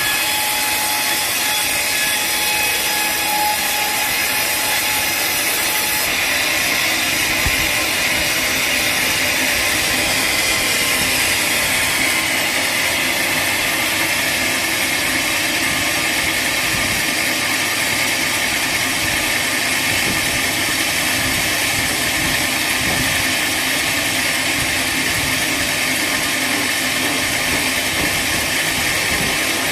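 Sawmill saw cutting through a teak log, a steady loud machine noise. About ten seconds in, a whine drops in pitch and then holds steady.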